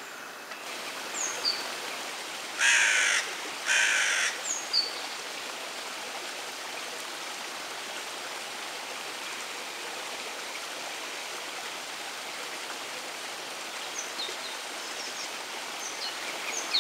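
Two loud, harsh, raspy bird calls about a second apart, a few seconds in, over steady outdoor background hiss, with a few short, faint, high chirps scattered before, after and near the end.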